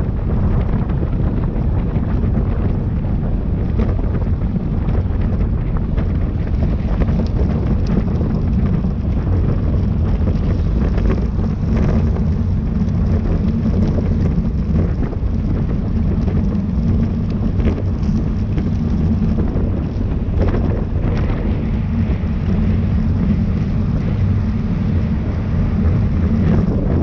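Steady wind buffeting on a bike-mounted camera's microphone at race speed, a heavy low rumble with a faint rushing hiss above it.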